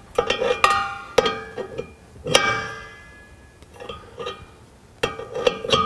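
Metal wrenches clinking on the metal hose reel and its fittings while an NPT pipe fitting is tightened. There are several bursts of sharp clinks, and each one rings briefly.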